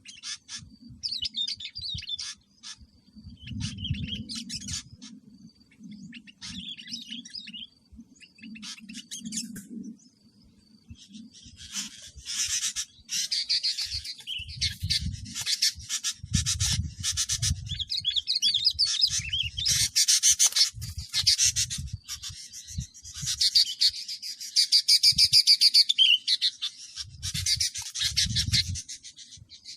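Bulbuls calling, with scattered chirps at first and then dense, loud chattering from about twelve seconds in, under repeated low rumbling bumps.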